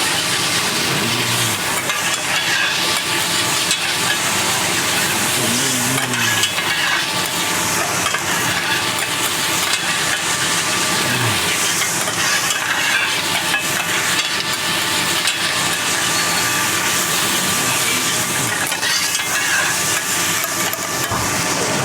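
Flat rice noodles and thin rice noodles sizzling in oil on a hot teppanyaki iron griddle as they are stir-fried, a steady frying hiss with stirring.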